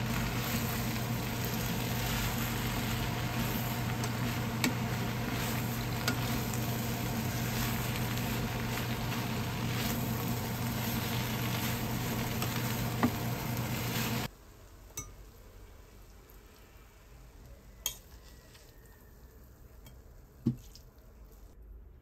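Food sizzling and frying in a pan over a steady low hum, cut off abruptly about two-thirds of the way through. A few light clicks follow in the quieter remainder.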